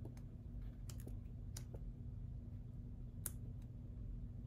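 A few faint, scattered clicks and taps from sticker books being handled, the sharpest a little past three seconds in, over a low steady hum.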